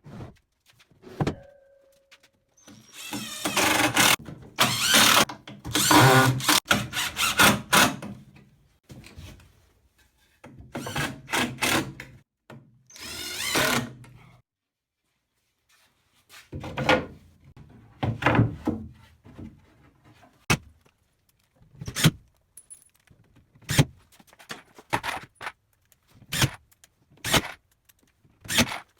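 Power drill running in several bursts, a few seconds each, driving screws into wood, followed by a run of separate knocks and thunks of wood being handled and fastened.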